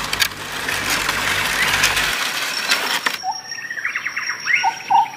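Forest ambience: for about the first three seconds a crackly rustling noise, then birds chirping in short, sharply rising calls over a steady high-pitched insect whine.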